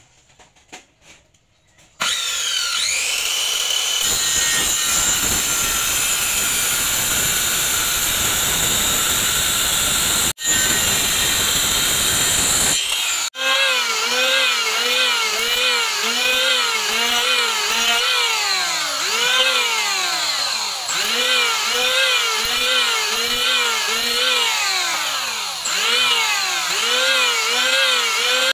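Electric power tool working material: a steady loud run with a high whine, then a pitch that repeatedly dips and recovers, roughly once a second, as it is pressed into the work. It cuts off briefly twice partway through.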